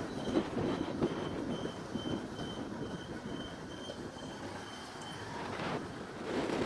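Honda Unicorn motorcycle riding at low speed, engine and road noise underneath, while a turn-indicator beeper gives short high beeps a little over twice a second, stopping about five seconds in.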